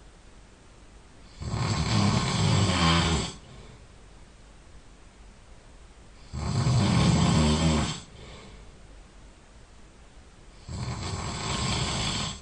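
A sleeping person snoring loudly: three long snores about four and a half seconds apart, each lasting one and a half to two seconds, with quiet breathing between.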